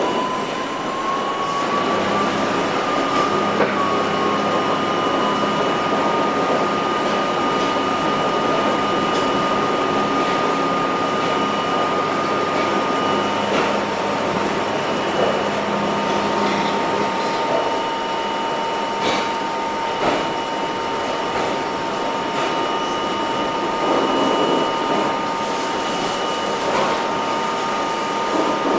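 R32 subway car running between stations, heard from inside the car: a steady running noise with a high whine that rises in pitch over the first few seconds, then holds steady alongside a second, lower whine.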